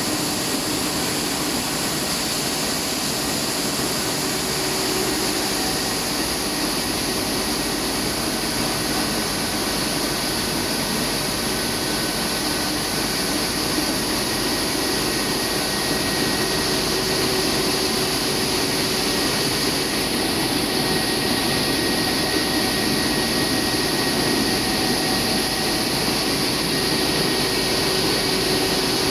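Rice milling plant running: a steady, continuous whir of motors, fans and milling machinery, with a few constant hum tones.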